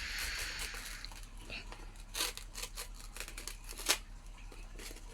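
Blind-box packaging being handled: a tearing, crinkling rustle in the first second, then scattered clicks and taps, with two sharper ones about two and four seconds in.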